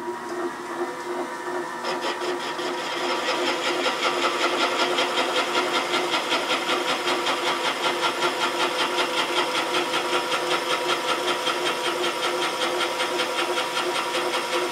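Serdi 100 valve seat machine's spindle turning a seat cutter through a 70-degree inside cut on a newly installed hardened exhaust seat in a Pontiac 455 cylinder head: a steady machine hum that grows louder and shriller about two seconds in as the cutter works the metal, pulsing about three times a second, and stopping at the end.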